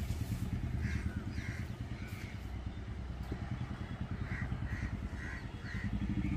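Low, pulsing engine of a Royal Enfield Bullet single-cylinder motorcycle running as the three-wheeler rides off, with crows cawing repeatedly over it. A motorcycle engine grows louder near the end.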